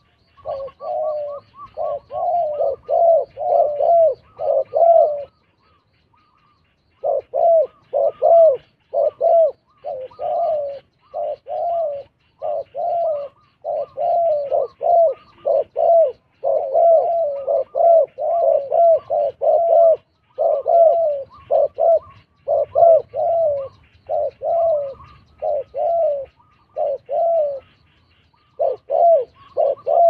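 Spotted doves cooing close by: a rapid, rhythmic series of short low coos, about two a second, broken by a pause of a second or two about five seconds in.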